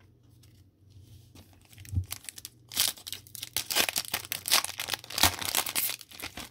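Foil trading-card pack being torn open and crinkled by hand. A few soft rustles and a dull knock come first, then a dense run of crackling and tearing from a little under three seconds in until just before the end.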